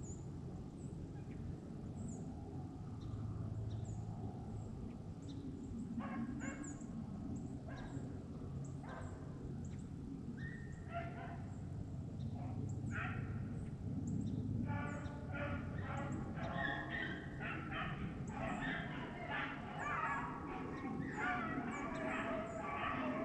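Pack of beagles baying while running a rabbit. Scattered voices start about six seconds in and build into a full, overlapping chorus from about halfway.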